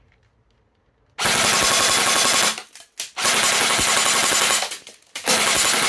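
Double Bell 813S HK416-style airsoft electric gun firing full-auto on a 7.4 V LiPo at about 10 rounds a second. Three bursts of about a second and a half each, the first starting about a second in, with short pauses between them; the last runs on past the end.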